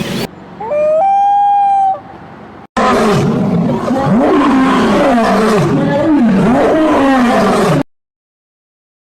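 Animal calls: first one long, steady, pitched call lasting about a second and a half, then about five seconds of loud, overlapping calls that swoop up and down over and over. The sound cuts off abruptly about a second before the end.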